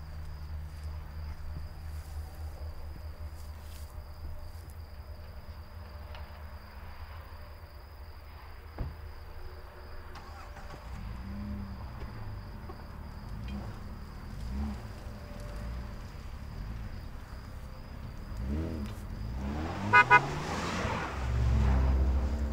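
A dark SUV's engine runs under a steady low rumble, then rises and falls in pitch from about halfway as the vehicle moves off. Near the end, two short car horn toots.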